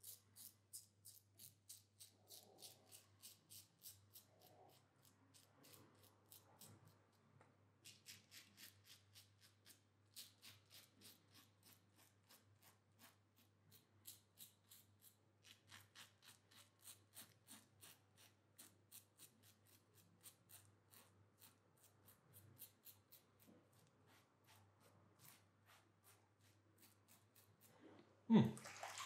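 Safety razor scraping through lathered stubble on the first pass, in quick short strokes several a second, in runs with brief pauses. Near the end comes a louder clunk and then splashing water as the razor is rinsed at the sink.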